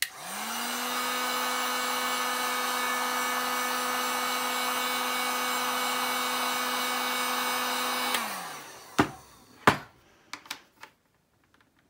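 Hand-held heat gun switched on, its fan motor spinning up and then blowing steadily while it heats a clear acrylic rod for bending; about eight seconds in it is switched off and winds down. Two sharp knocks follow about a second later.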